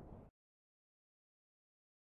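Near silence: the tail of a fade-out dies away just after the start, then dead digital silence.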